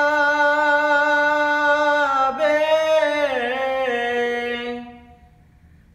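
A man singing a Bengali Islamic song solo, drawing out the word 'robe' in long held notes. The voice shifts pitch about two seconds in, wavers around three seconds, then fades away near the end.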